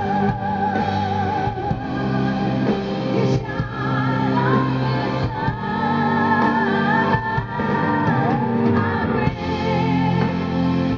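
Live rock band: a woman sings with vibrato over electric guitar and drums.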